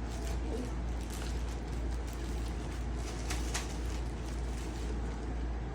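Plastic packaging rustling in brief crinkles, the clearest about three and a half seconds in, over a steady low background rumble.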